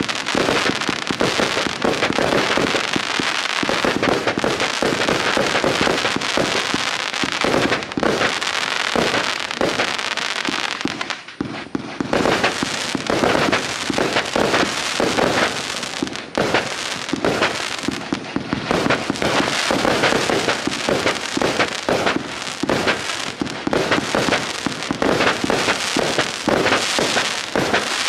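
NICO Delta Fire V144, a 144-shot compound firework battery, firing a rapid, dense barrage of shots and bursts with hardly a gap. The barrage briefly thins about 11 and 16 seconds in, then carries on.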